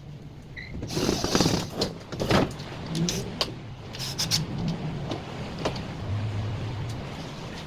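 Repair work on a tumble dryer's fan assembly: irregular knocks, clicks and scraping of tools and parts, loudest in the first couple of seconds, with a low mechanical hum in between.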